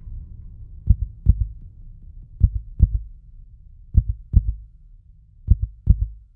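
Heartbeat sound effect: deep double thumps, four lub-dub pairs about a second and a half apart, over a low hum that fades out.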